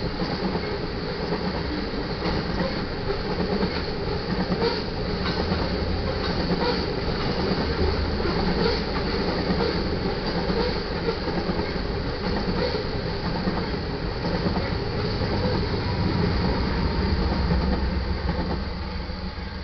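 Freight train of covered hopper cars rolling past, steel wheels clicking over rail joints over a steady low rumble. The sound falls away in the last second or so as the end of the train clears the crossing.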